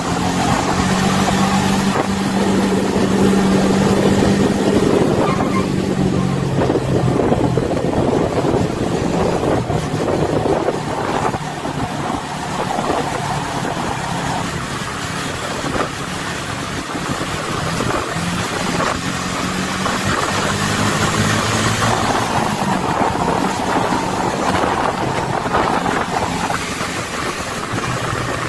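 Vehicle engine droning at a steady pitch over continuous road and wind noise, heard from a moving vehicle on the highway. The drone weakens around the middle and comes back strongly about 18 seconds in.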